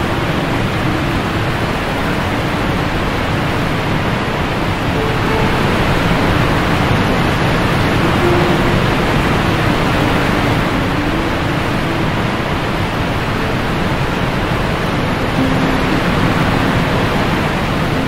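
Steady rushing roar of the 50-metre Gamla waterfall plunging into its gorge.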